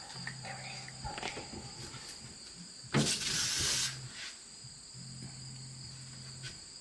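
A short hiss of aerosol insect spray, about a second long, roughly three seconds in, over steady chirping of crickets.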